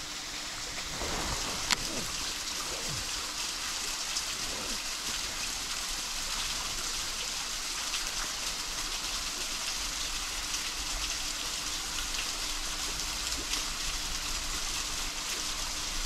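Steady hiss of water trickling down a bank into a lake, with one sharp click a little under two seconds in.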